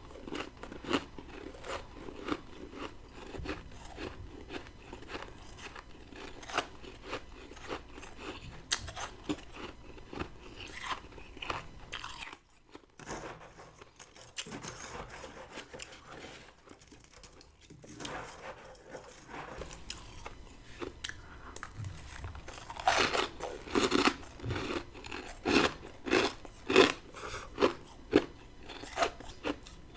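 Close-miked mouth sounds of crisp crunching and chewing of powdery freezer frost grown by a humidifier in a deep freezer. Crunching goes on steadily, eases into a quieter pause about twelve seconds in, then returns as louder, quicker crunching bites in the last several seconds.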